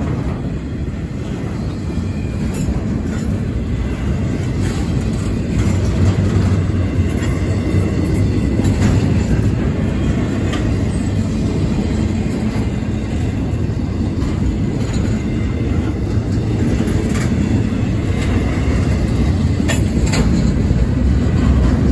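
Freight cars of a long CSX intermodal train rolling steadily past: a continuous low rumble of steel wheels on rail, with a few sharp clacks as wheels cross rail joints.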